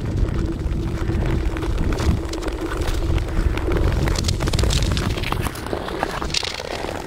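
Wind buffeting the microphone while skating, with ice-skate blades scraping and hissing on natural ice in repeated strokes, more of them from about two seconds in. A faint steady hum runs underneath.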